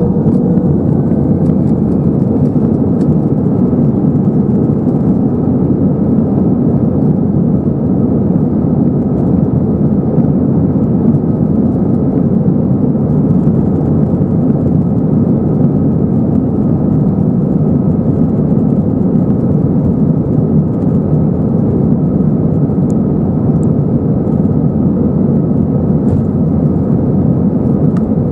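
Airliner cabin noise over the wing of an Airbus A321 taxiing: the steady hum and rush of its CFM56-5B turbofans at low thrust, with a faint steady whine above it.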